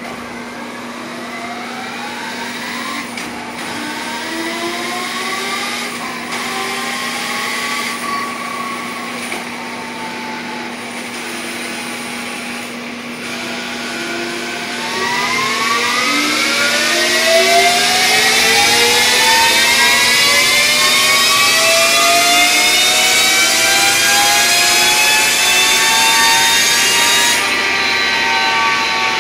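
2016 Victory Empulse TT electric motorcycle's motor and drivetrain whining on a chassis dyno: a few short rises in pitch, then a long climbing whine from about halfway that grows louder. Near the end the hiss over it stops abruptly and the whine begins to wind down, over a steady hum throughout.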